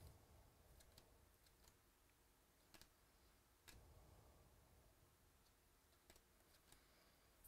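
Near silence with a few faint, scattered clicks and light rustles of trading cards being handled and sorted.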